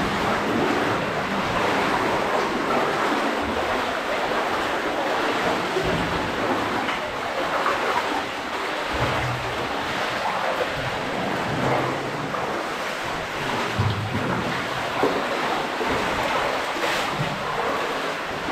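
Water sloshing and splashing as cavers wade knee-deep through a flooded cave passage, steady throughout, with a few dull low knocks.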